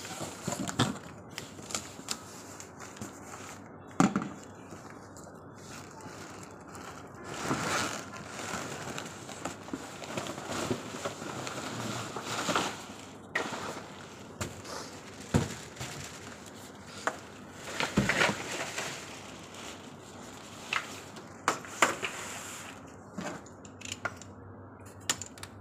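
Unboxing a baby stroller: cardboard box flaps bent and scraped open and plastic wrapping crinkling, with scattered sharp knocks and clicks as the stroller is handled.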